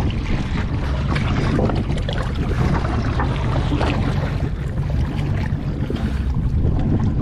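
Choppy water sloshing and splashing over a swamped boat's deck and around its swim ladder close to the microphone, with wind buffeting it and a steady low rumble.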